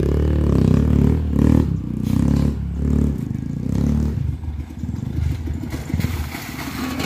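Dirt bike engine running at low revs while a bike comes down a steep, rutted dirt slope. It is steady for the first few seconds, then turns more choppy, with clattering and scraping knocks near the end.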